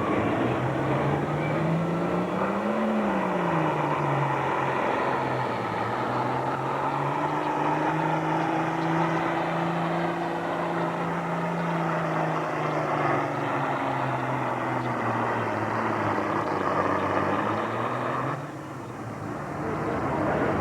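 Pro farm class diesel tractor engine running hard under load on a pull, its pitch rising and falling and then holding steady, with a high whine over it. Near the end the engine drops off sharply, then comes back up about a second later.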